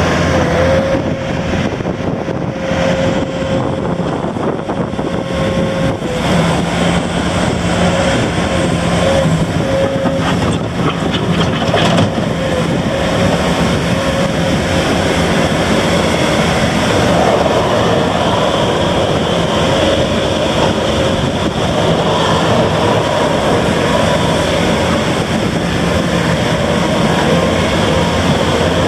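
Bobcat S650 skid steer loader's diesel engine running steadily, with a steady high whine over the engine note.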